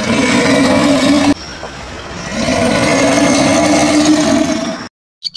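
Alligator hissing with its jaws open: two long, loud hisses with a low growling tone in them. The first breaks off after about a second, and the second swells up about two seconds in and cuts off suddenly near the end.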